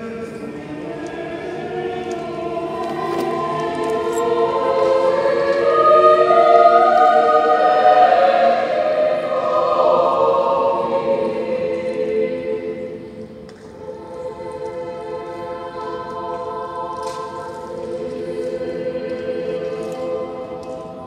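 Choir singing long sustained chords, swelling to a loud peak midway, then dropping away and carrying on more softly.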